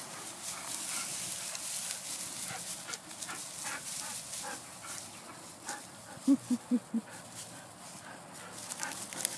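Dry tall grass rustling and swishing, with a dog giving four quick, short barks about six seconds in.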